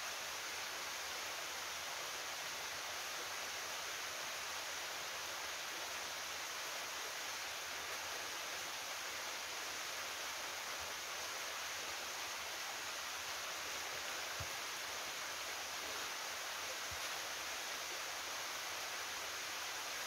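Small waterfall, a thin stream of water pouring down a steep granite rock face, giving a steady, even rushing hiss.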